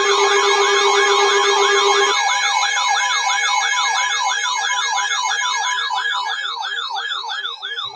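Electronic yelp-style alert siren, a rising sweep repeated about three to four times a second over steady tones, sounding as the alert ahead of a severe thunderstorm warning. A lower steady tone underneath cuts off about two seconds in, and the siren fades slightly toward the end.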